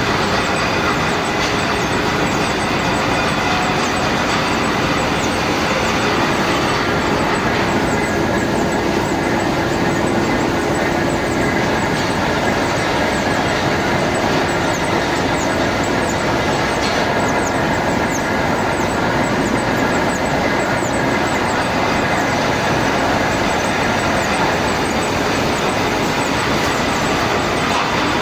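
Metal lathe running steadily while turning a shaft.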